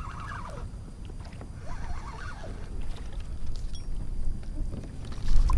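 Wind buffeting the microphone over a kayak on the water, with a harder gust near the end.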